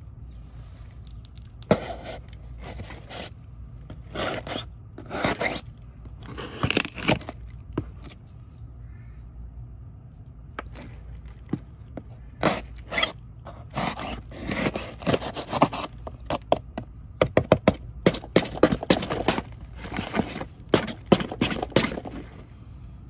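A Buck 110 folding knife's drop-point steel blade cutting into a cardboard box, a series of scraping, tearing strokes through the cardboard. The strokes come a few seconds apart at first, then in quick, rapid runs in the second half.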